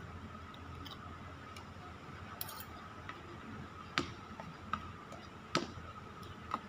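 Spoon and fork clinking against a plate during eating, with about four sharp clicks in the second half over a faint steady tone.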